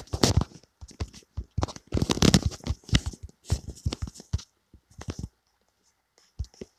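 Fingertips tapping on a smartphone's touchscreen while typing on the on-screen keyboard, a quick uneven run of taps with some rubbing and handling noise of the phone, loudest about two seconds in. The taps stop about five seconds in.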